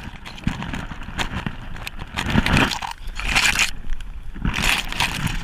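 Bracken rustling and crunching as dense fronds brush and scrape past close to the microphone, in irregular surges with a few knocks.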